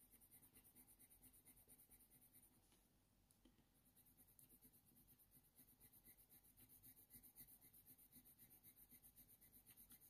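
Very faint scratching of a Faber-Castell Polychromos coloured pencil stroked with light pressure over hot-press watercolour paper, as short strokes that come more often in the second half.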